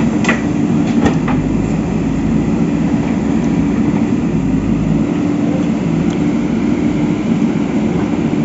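A machine running with a steady drone, with two or three sharp clicks in the first second and a half.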